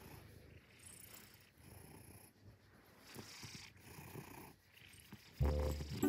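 Maine Coon cat purring softly in low waves while its head is stroked. Near the end, much louder background music with a heavy bass comes in.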